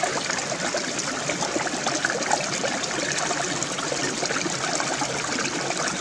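Shallow rocky stream running steadily, water trickling and rushing over stones in a small cascade.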